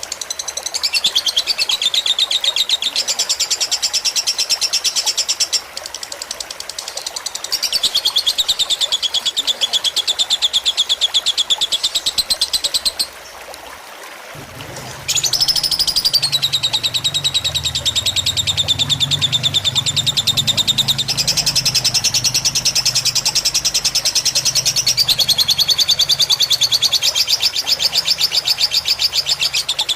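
Lovebird singing a long, very fast chattering trill, the drawn-out song prized in fighter lovebirds, stepping up and down in pitch over trickling water. The trill breaks off for about two seconds partway through, then starts again.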